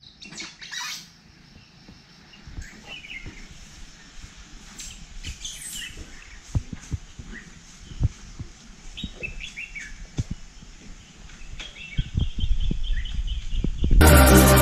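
Birds chirping and calling at intervals over irregular low thumps, with a low rumble swelling near the end. Electronic intro music cuts in abruptly just before the end.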